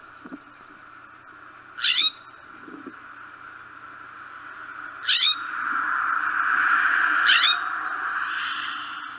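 California scrub-jay giving three short calls a few seconds apart, each falling in pitch, over a steady background hiss that grows louder toward the middle and then eases.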